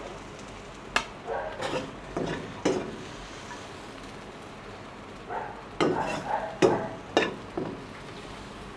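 Steel ladle scraping and knocking in a wok as stir-fried lotus stem is scooped out and onto a plate, with several sharp metal clanks and a light frying sizzle underneath.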